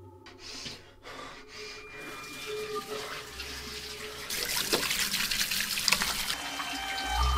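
Bathroom sink tap running with hands being washed under the stream; the water comes in loud about four seconds in.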